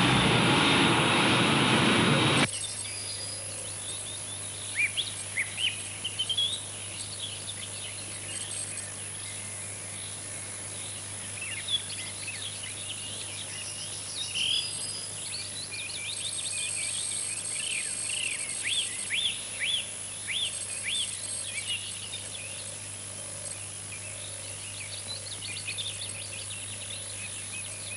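Birds chirping and calling in many short, quick notes over a low steady hum. Before them, a loud noise cuts off abruptly about two and a half seconds in.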